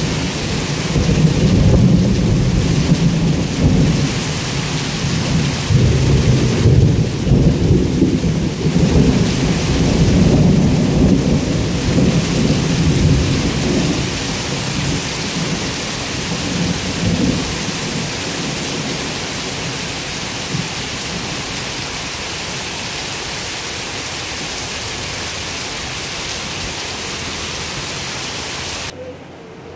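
Heavy rain pouring down, with thunder rumbling through the first half and fading away about halfway through, leaving the steady hiss of the downpour. The sound drops off abruptly near the end.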